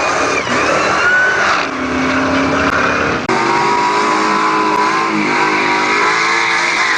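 Supercharged 2003 Ford Lightning V8 at full throttle under hard acceleration, its note climbing in pitch, with a sudden change in the note about three seconds in.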